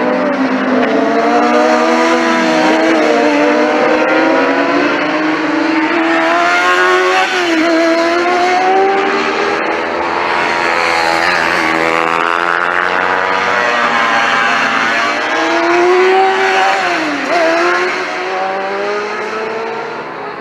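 Several sport motorbikes on a race track, their engines revving hard as they pass one after another. Overlapping engine notes rise and fall in pitch throughout, with sharp dips a few times.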